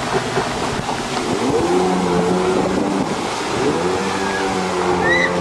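Jet ski engine running at speed, its pitch dropping and climbing back about a second and a half in and again near four seconds.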